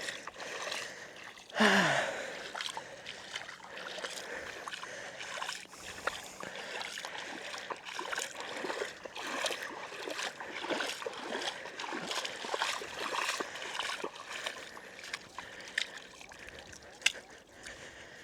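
Footsteps squelching and splashing through wet mud and shallow water on a tidal flat, with a steady hiss of wind and water behind. About two seconds in, a short voice-like sound slides down in pitch, the loudest moment.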